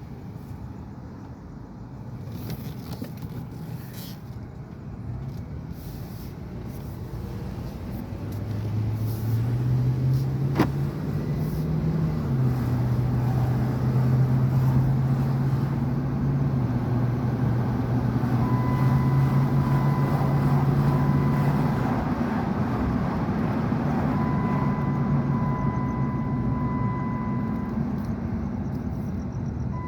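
2005 Dodge Durango's 5.7 Hemi V8 on a test drive, running on freshly changed spark plugs. The engine note climbs as it accelerates, drops suddenly as the automatic upshifts about twelve seconds in, then holds steady. A steady warning tone sounds twice in the second half.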